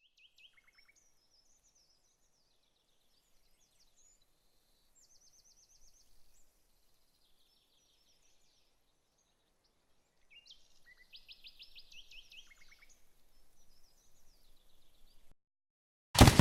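Faint songbirds chirping and trilling in short rapid runs, with more birds joining about ten seconds in. The birdsong cuts off abruptly, and a moment later, at the very end, a sudden loud bang rings out and dies away.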